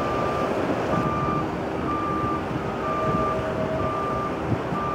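A vehicle's reversing alarm beeping steadily, about once a second, over a constant background rumble.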